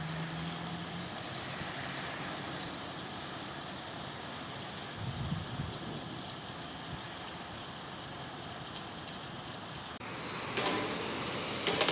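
Rain falling steadily, an even hiss. About ten seconds in the sound shifts and grows a little louder, with a few sharp clicks near the end.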